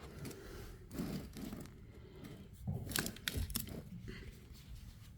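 Handling of replacement ride-on-toy batteries: scattered clicks, knocks and brief rustling, with the sharpest cluster of clicks about three seconds in.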